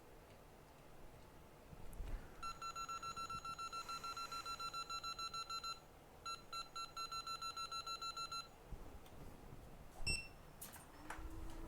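Rapid electronic beeping from microsoldering bench equipment: short high beeps at about six or seven a second in two runs with a brief pause between. A click follows, and near the end a low steady hum starts.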